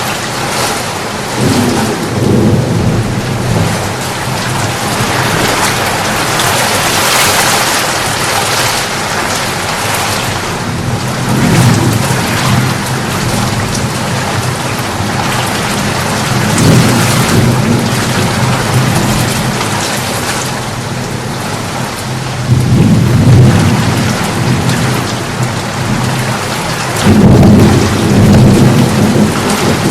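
Rain falling steadily in a thunderstorm, with several low rolls of thunder rumbling through it, the loudest near the end.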